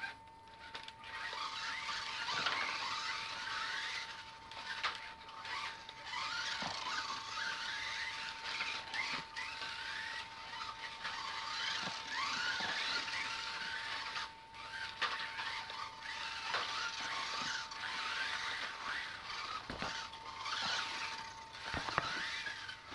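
Kyosho Mini-Z RC cars' small electric motors whining and squealing, many overlapping pitches rising and falling as the cars accelerate and brake around the floor, with brief lulls.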